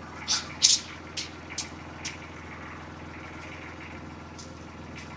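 Mini skid steer's diesel engine idling steadily, with about five sharp clicks and knocks in the first two seconds.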